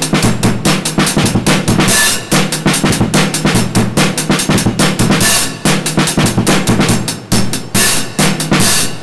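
Background music with a fast, busy drum-kit beat of kick and snare.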